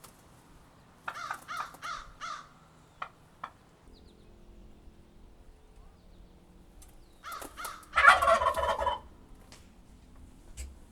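A turkey calling: a quick run of about five notes about a second in, then a loud, rattling gobble about eight seconds in.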